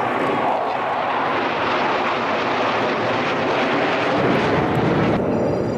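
Chengdu J-10 fighter jets flying over in formation: a steady, loud rushing of jet engine noise. Its high hiss changes abruptly near the end.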